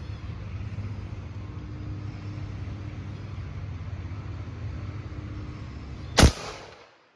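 Steady low engine-like hum, then about six seconds in a single loud shot from a .50 caliber AEA Challenger PCP air rifle, with a brief ring after it.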